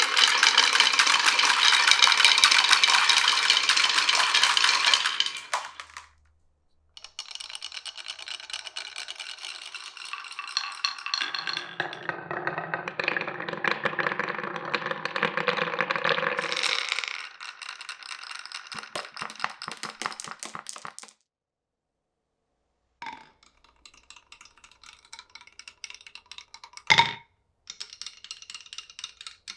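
Marbles rolling and clattering down a marble run's wooden rails and pipes in several short runs separated by brief gaps: a loud, dense clatter first, then steadier rolling with a deeper rumble, a run of separate clicks, and lighter clatter with one sharp knock near the end.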